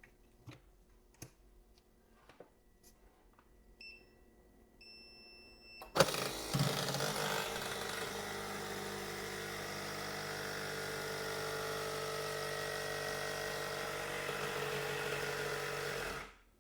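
Light clicks of handling, two short electronic beeps, then a phone-screen debubbling machine starting with a jolt about six seconds in and running steadily with a hum and hiss for about ten seconds before cutting off sharply, as it pressurises the laminated screen to remove bubbles.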